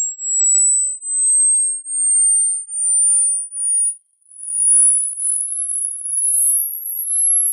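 Hearing-test tone: a single high-pitched sine tone gliding slowly upward in pitch. Its loudness swells and dips about once a second at first, cuts out briefly about four seconds in, then carries on higher.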